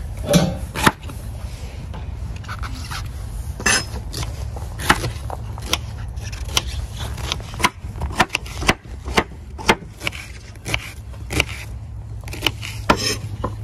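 Kitchen knife cutting vegetables on a cutting board, celeriac on wood and onion on plastic. The strokes come as sharp, irregular knocks about one or two a second, over a low steady hum.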